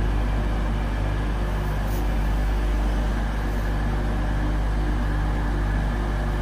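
LNER Azuma train moving slowly along the platform, a steady low hum and rumble with no change in loudness.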